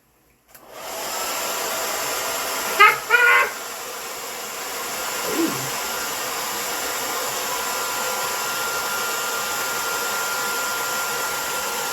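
A blow dryer with a soft bonnet hood attachment switches on about half a second in and runs steadily, a constant hiss of air with a faint whine. About three seconds in there is a brief loud vocal sound over it.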